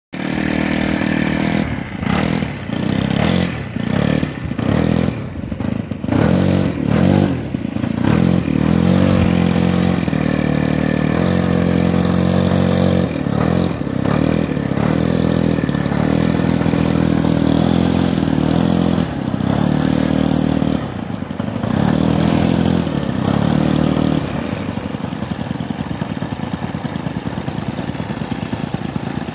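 Radio-controlled model warbird's four-stroke glow engine being run up on the ground. It starts with quick throttle blips about once a second, then holds at high revs with a few brief dips, and drops to a quieter, steadier run near the end.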